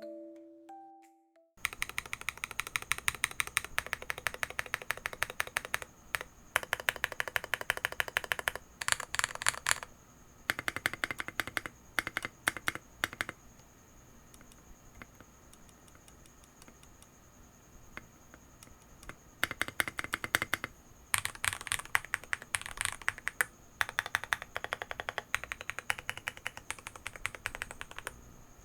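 Mechanical keyboard (Akko YU01, resin case) being typed on in quick bursts of keystrokes, with a pause of several seconds about halfway through.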